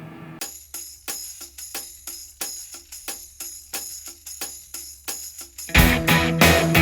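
Background music: a light percussion beat of about four strokes a second, joined near the end by a louder full band with bass.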